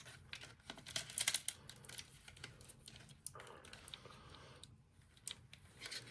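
Plastic parts of a dishwasher control panel being handled and taken apart by hand: many irregular light clicks and taps, with a short rubbing or scraping sound a little past the middle.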